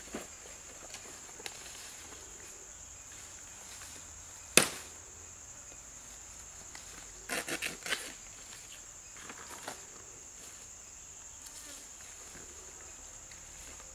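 Steady high-pitched drone of insects. Over it, the snaps and rustles of fresh banana leaves being cut with a knife and handled: one sharp loud crack about a third of the way in, and a quick run of cracks a little past halfway.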